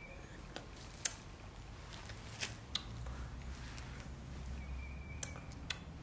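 Faint sharp clicks and taps, about six spread irregularly, over a low steady hum, with one brief high whistle near the end.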